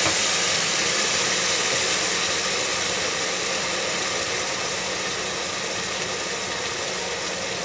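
Mutton pieces with ground spices and a wet tomato and black pepper paste sizzling in oil in a pressure cooker. The steady hiss slowly dies down as the paste settles into the hot oil.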